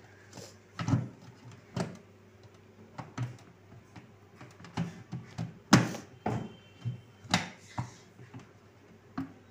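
Clear plastic freezer-compartment door of a refrigerator being pushed and worked by hand: irregular sharp plastic clicks and knocks, the loudest about six and seven seconds in. The new door's latch does not quite fit its catch yet.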